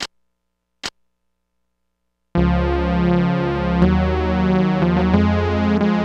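Casio SA-10 mini keyboard playing sustained synth chords over a deep bass note. The chords come in abruptly about two seconds in and change roughly every second and a half, after two short clicks near the start.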